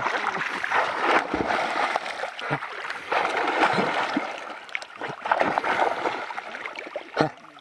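Dogs swimming and splashing through muddy dam water, with irregular sloshing and splashes, quieter near the end.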